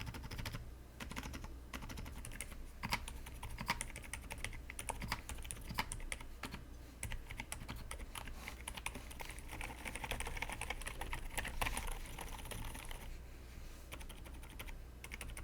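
Typing on an AKKO x Dark Project 5075 mechanical keyboard fitted with Akko Fairy silent switches: a very quiet, irregular run of soft, muted keystrokes. The keystrokes come thickest about two thirds of the way in, then thin out.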